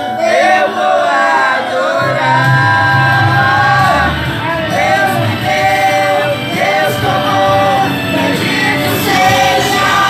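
Two children, a boy and a girl, singing a gospel hymn into microphones over musical accompaniment; a low bass part comes in about two seconds in.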